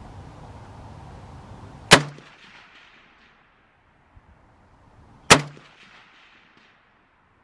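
Two single rifle shots about three and a half seconds apart, each sharp crack followed by a short echo.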